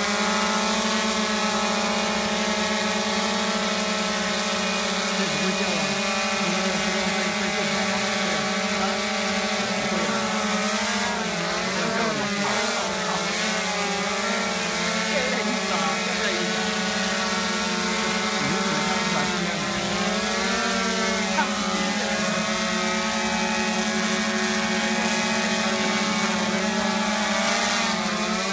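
Ideafly Poseidon480 quadcopter's propellers and motors humming steadily as it hovers low with a water bottle hanging beneath it. The pitch wavers as the motors speed up and slow down to steer, most noticeably about twelve seconds in and again near twenty seconds.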